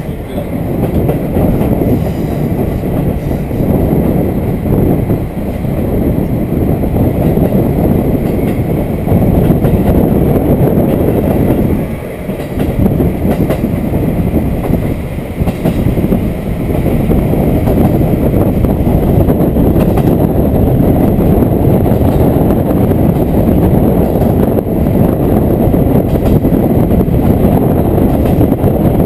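Diesel railcar running, heard from inside the car: a steady rumble of wheels on rail and engine, briefly quieter about twelve seconds in.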